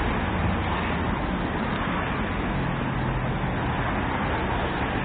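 Steady urban traffic noise: an even rumble and hiss with no single vehicle or event standing out.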